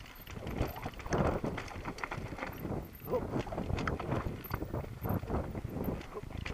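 Mountain bike rolling down a rocky singletrack: a fast, irregular clatter of the tyres knocking over loose stones and the bike rattling with each hit.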